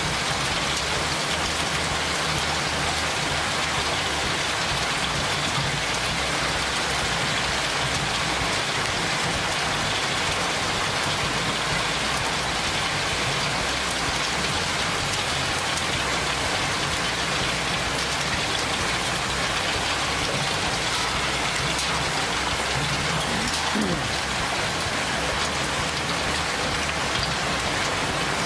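Heavy rain mixed with small hail falling steadily: a dense, even hiss of many tiny hits. The hailstones are smaller than a fingernail.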